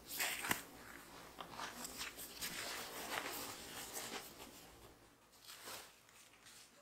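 Rustling and soft knocks of fabric and small items being handled as folded cloths are tucked into a fabric storage caddy, with a sharp click about half a second in; the handling grows quieter toward the end.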